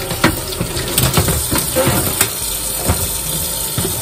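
Kitchen tap running into a stainless-steel sink as vegetables are rinsed, with a few light knocks of handling along the way.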